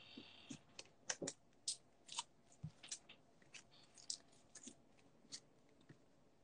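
Faint, irregular light clicks and taps from a stack of trading cards being set down on a mat and handled.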